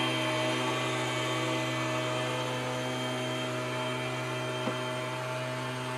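Leaf blowers running steadily: a constant engine hum made of several held tones, easing slightly in level.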